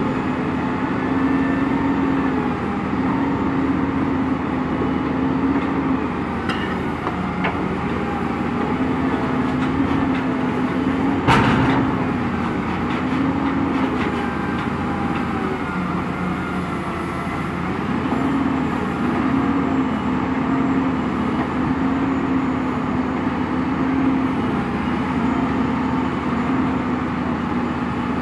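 Truck-mounted grapple loader's engine and hydraulics running, its hum rising and falling repeatedly as the boom works, with a single loud bang about eleven seconds in.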